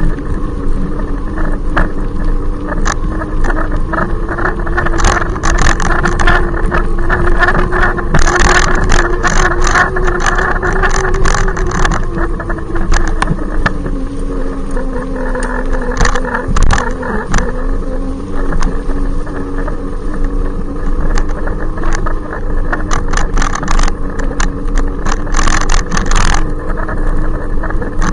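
Loud electric bicycle motor whine from the e-bike riding behind, its pitch rising and falling with speed and dipping about halfway through, over a steady rushing noise with scattered clicks.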